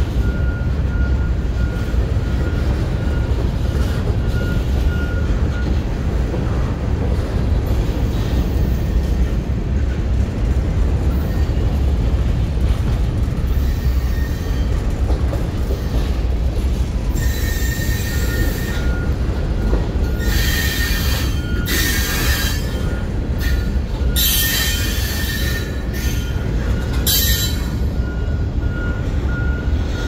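CSX freight train of covered hoppers and tank cars rolling past at close range: a steady, heavy rumble of the cars. From about halfway through to near the end come repeated bursts of high-pitched wheel squeal.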